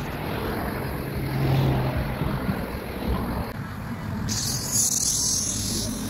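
A car driving past on the road, its engine hum and tyre noise swelling about a second and a half in, then easing off. A high hiss comes in near the end.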